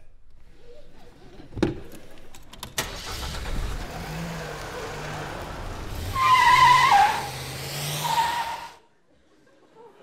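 A few sharp clicks, then a car engine starting and running as the car pulls away, with a loud tyre squeal about six seconds in. The sound cuts off suddenly just before nine seconds in.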